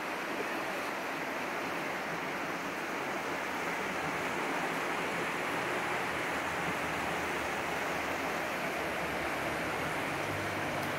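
Steady rushing of a swollen, flooding river's fast brown water, even and unbroken. A faint low hum joins near the end.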